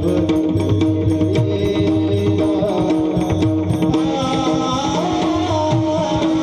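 Devotional music led by mridang drumming: repeated deep, resonant bass-head strokes over a steady drone, with a wavering melodic line that comes in more strongly about two-thirds of the way through.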